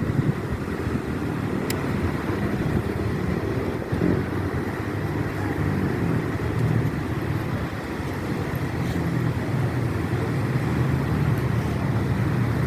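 Strong wind buffeting the microphone: a loud, steady, fluttering low rumble.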